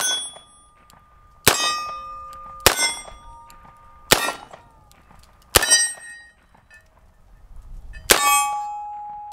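Six .357 Magnum shots from a Rossi RP63 stainless six-shot revolver fired double action, about a second and a half apart with a longer pause before the last. Each shot is followed by steel plate targets ringing on for a second or more.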